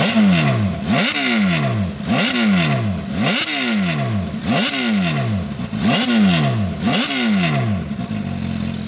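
MV Agusta F4 RR's inline-four engine on its factory exhaust, blipped hard about once a second, seven times: each rev rises sharply and falls back. Settles to idle near the end.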